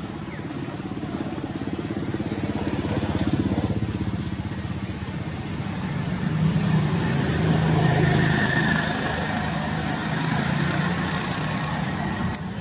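A motorbike engine running, steady at first and growing louder around the middle before easing off slightly.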